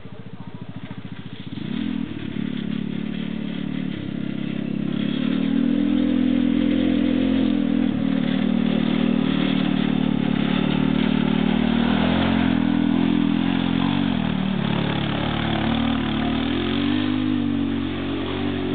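Helix 150cc go-kart engine revving up about two seconds in, then running at a steady high pitch under load. Near the end the throttle eases off and the pitch drops, then rises and falls.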